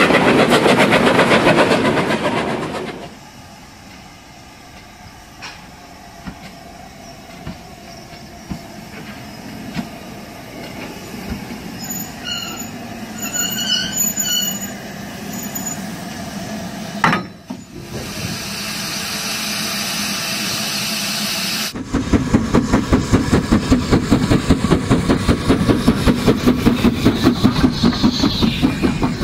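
OO gauge model trains running on the layout: wheels and motors clatter and hum over the track. The sound is loud as a train passes close at the start, quieter through the middle with a sharp click near the middle, then a loud, rapid, even clatter of about six beats a second starts some seven seconds before the end as a steam locomotive passes close.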